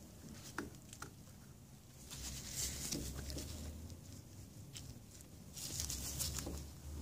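Faint handling sounds of gloved hands working a plastic outboard water pump housing down over the drive shaft: a few light clicks and taps over a low rumble that comes and goes.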